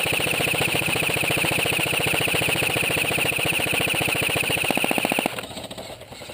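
Airsoft electric gun firing a long full-auto burst of suppressing fire: a rapid, even rattle of shots over a steady high gearbox whine, stopping abruptly about five seconds in.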